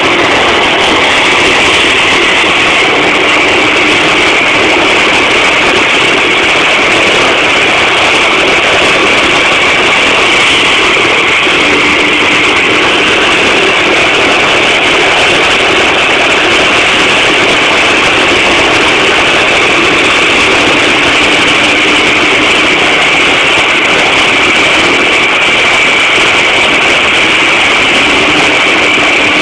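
De Havilland Canada DHC-6 Twin Otter's turboprop engines running at ground idle with propellers turning, a loud, steady high whine over a deeper drone.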